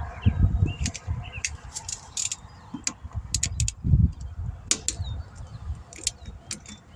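Small birds chirping in short rising and falling notes, with scattered sharp clicks and low, uneven rumbling bumps throughout.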